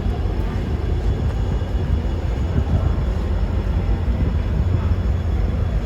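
Train moving through a railway station platform: a steady low rumble with no distinct clanks or horn.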